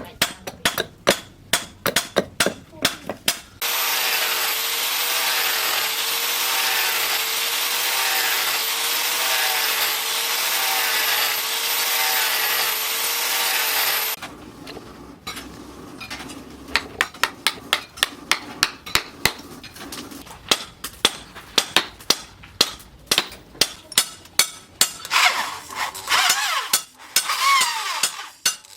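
Hammer blows on steel at an anvil, forging a knife blade. They stop after a few seconds for about ten seconds of a power tool running steadily with a slightly wavering whine, typical of an angle grinder on steel. After a short quieter spell, regular hammering comes back, about two blows a second.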